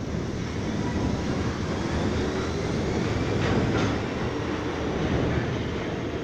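R42 subway train pulling out and running off down the tunnel: a steady rumble and clatter of wheels on the rails, with a faint wheel squeal and a brief harsher screech about three and a half seconds in.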